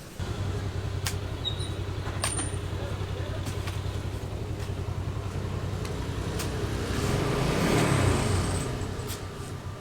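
An engine running with a steady, pulsing hum that grows louder about eight seconds in and then eases off, with a few sharp clicks.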